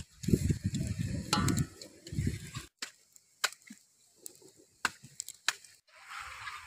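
Broth sloshing and splashing as a coconut-shell ladle scoops it and pours it over a whole chicken in a metal basin. A wood fire then crackles with a few sharp pops.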